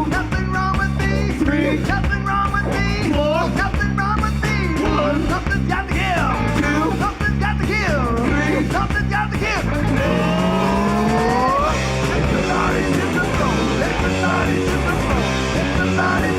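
Live rock band playing an instrumental passage: an electric guitar lead with bending notes over bass and drums.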